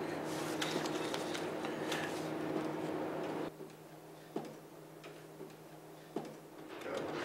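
Light clicks of poker chips and playing cards being handled at a card table, over a steady low hum. Two sharper single clicks stand out in the quieter second half.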